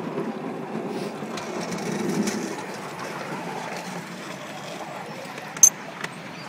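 Miniature steam railway train running, its wheels clattering on the track, swelling briefly about two seconds in. A single sharp click near the end.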